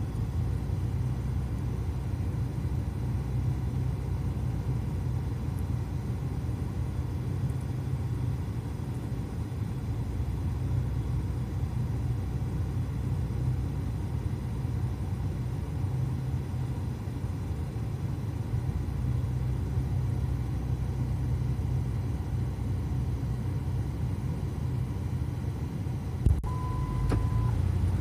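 Swollen, muddy river rushing over a concrete ford, a steady low rumble of fast water. A click and a short beep come near the end.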